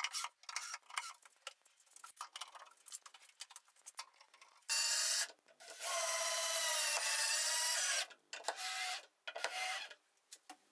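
Small clicks and scrapes of a hex key turning the bolts of a steel hinge. About five seconds in, a cordless drill/driver starts driving screws through the steel hinge bar into birch plywood: a short burst, then a steady motor whine for about two seconds, then two brief pulses near the end.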